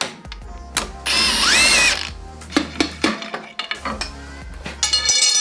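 Cordless power tool with a socket spinning bolts out of a Toyota 1KZ engine block. There is a burst about a second in, its motor pitch rising and falling, and another short burst near the end, with short knocks between.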